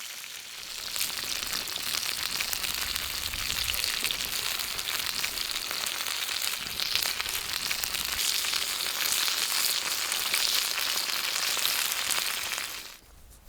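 Sausages frying in hot oil in a wok, a steady crackling sizzle that swells about a second in and stops abruptly near the end.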